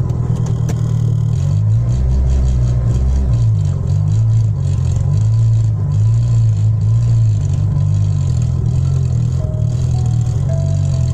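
Bass-heavy music played loud through a car's aftermarket sound system, the low bass notes changing in a steady beat with regular ticks above them.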